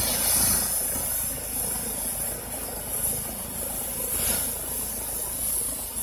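Medical helicopter running on the ground: a steady turbine whine and hiss over a low rumble.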